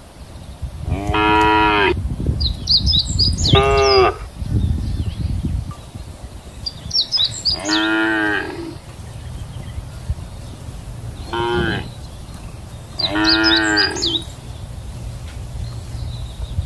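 Cows mooing: five drawn-out moos a few seconds apart, the first about a second in and the last near the end, with small high chirps among them.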